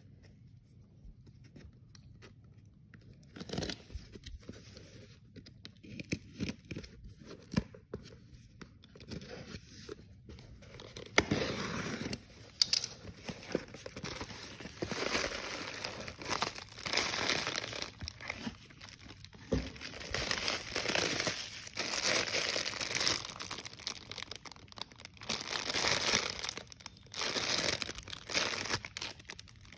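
Packaging being handled, crinkled and torn open by hand. There are only sparse light rustles and taps at first, then from about eleven seconds in, continuous uneven crinkling and tearing.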